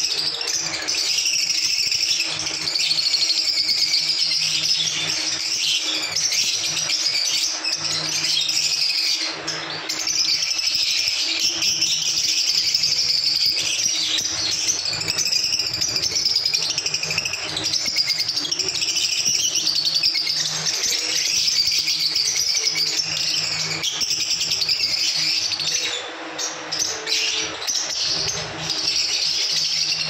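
A flock of caged lovebirds chattering nonstop with shrill overlapping chirps and twitters. The chatter eases briefly near the end, over a faint steady low hum.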